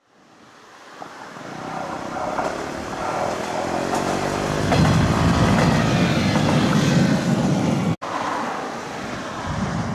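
A KiHa 110-series diesel railcar, the 'Oikotto' rapid, passing, its engine and running noise growing louder as it comes closer. About eight seconds in the sound cuts off sharply and gives way to quieter outdoor background noise with some wind.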